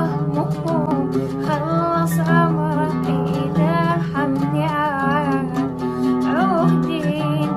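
A female voice singing a slow, ornamented sad song over plucked guitar accompaniment, the sung line wavering and gliding in pitch.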